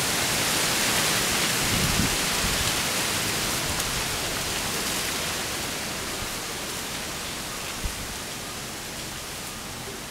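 A steady, even hiss that slowly fades, with one short low thump about eight seconds in.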